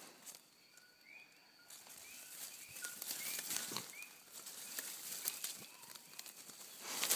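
Leaves and dry leaf litter rustling and crackling as a dog pushes and noses through undergrowth, busiest in the second half with a sharp crackle near the end. A bird chirps faintly and repeatedly, about twice a second.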